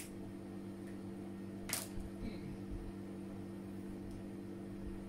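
Steady low electrical hum. A cigarette lighter clicks once right at the start, and a short hiss follows a little under two seconds in.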